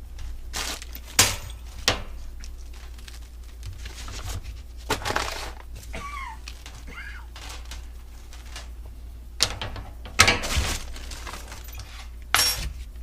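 Plastic packaging crinkling and rustling in irregular bursts as air-spring kit parts are handled and unwrapped, with a couple of brief squeaks about halfway through.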